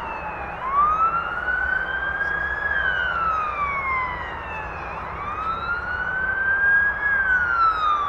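Emergency vehicle siren in a slow wail, its pitch rising over about two seconds and falling a little more slowly, twice over.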